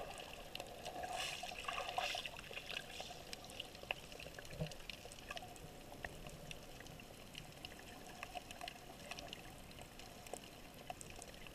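Muffled underwater sound of a swimmer diving in shallow sea: faint bubbling and water movement, with many small scattered clicks and crackles.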